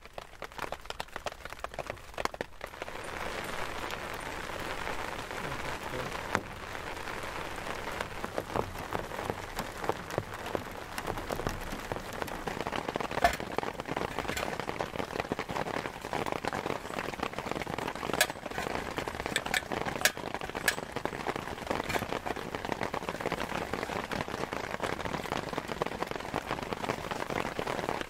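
Rain pattering on a surface: a dense, even patter that grows louder a couple of seconds in, with scattered sharper drop hits.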